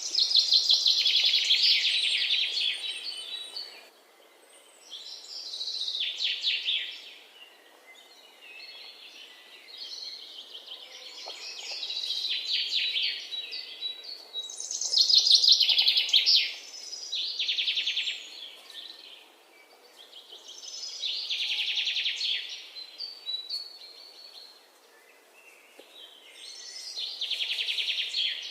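Budgerigars chattering and warbling in bursts of one to three seconds with short pauses between, each burst a fast run of high chirps. This is the chatter of contented budgies.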